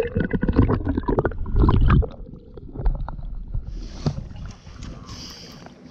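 Muffled underwater audio: dense knocking and gurgling with a low rumble, loud for about the first two seconds, then quieter, with a steady water hiss coming in near the end.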